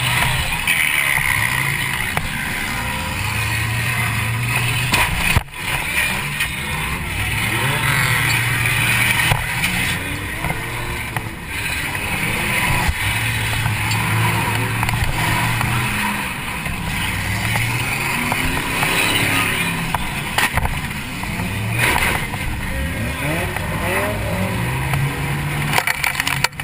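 Demolition derby car's engine heard from inside the car, revving up and falling back over and over as it drives and rams, with several sudden bangs of collisions mixed in.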